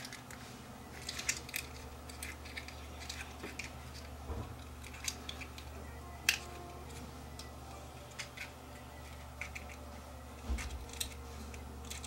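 Scattered small clicks and taps of plastic parts being handled while a Hubbell GFCI receptacle is taken apart, over a steady low hum.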